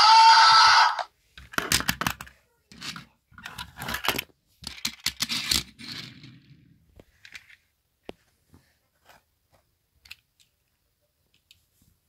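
A loud rising tone that stops about a second in, then several seconds of irregular scraping and rustling handling noise, thinning out to a few faint ticks.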